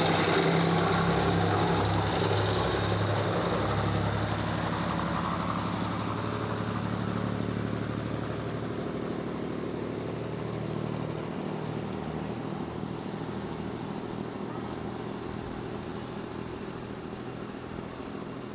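Diesel suburban railcar's engine running as the railcar draws away. Its steady low note fades gradually as it recedes.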